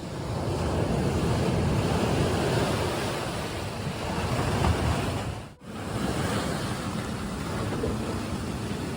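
Mediterranean waves washing onto the shore, a steady rushing with wind buffeting the microphone. The sound drops out briefly a little after halfway.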